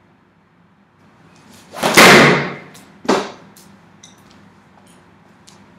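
A football-shaped foam stress ball, cast from a sling, slams into an apartment door about two seconds in, the door ringing briefly. A second, slightly quieter thud follows about a second later.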